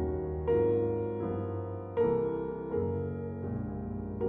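Background piano music: slow chords struck about once a second, each ringing out and fading before the next.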